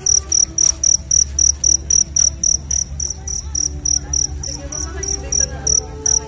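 A cricket chirping steadily in a fast, even rhythm of about four short, high-pitched chirps a second.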